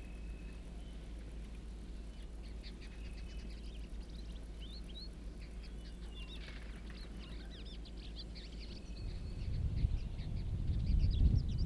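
Wild birds chirping and calling in the bush over a steady low hum. Near the end, a louder, uneven low rumbling comes in.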